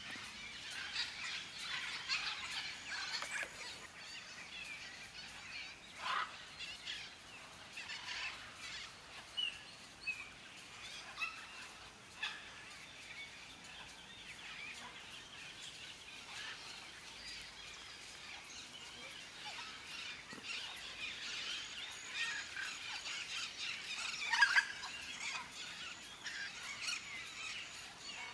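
Mixed flock of macaws, maritaca parakeets and parrots calling: a running chorus of short squawks and chirps, with one louder call near the end.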